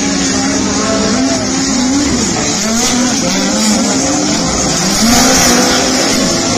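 Several race car engines running together, their pitches rising and falling against one another.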